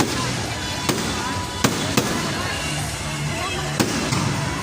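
Fireworks going off: about five sharp bangs at uneven intervals over a continuous background din.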